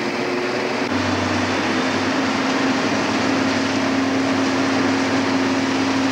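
Crushed-ice machine blowing ice through a large hose, a steady rushing spray over a steady machine hum that firms up about a second in.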